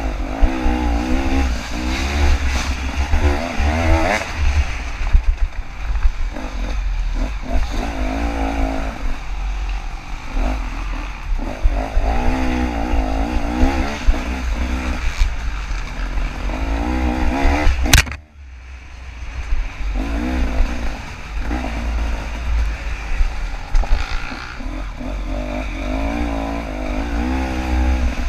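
KTM 300 two-stroke dirt bike engine revving up and down over and over as it is ridden hard, with heavy low rumble of wind on the camera microphone. About eighteen seconds in there is one sharp knock, and the engine sound briefly drops away before picking up again.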